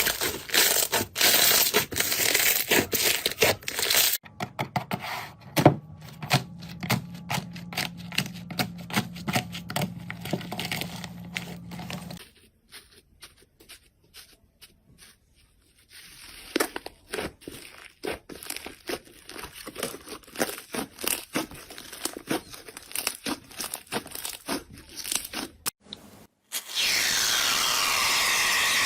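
Slime being squished, stretched and pressed close to the microphone, making dense crackling and popping clicks in several short clips that cut from one to the next. Near the end a steady hiss takes over.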